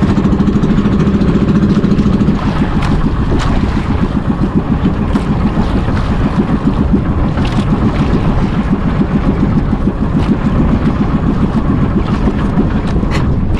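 Outrigger bangka's engine running, a steady drone that drops slightly and turns rougher and more pulsing about two seconds in. A few sharp clicks or knocks sound over it.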